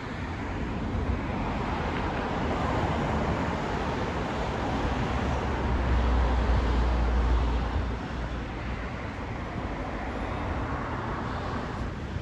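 Road traffic passing on the street: a steady rumble that swells as a vehicle goes by, loudest and deepest about six to seven seconds in, dropping off about two seconds later.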